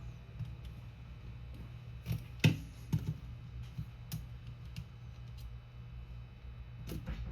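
Light, irregular clicks and taps of small repair tools on the parts of an opened iPhone 14 while its small screws and clips are worked loose: about five sharp clicks, over a steady low hum.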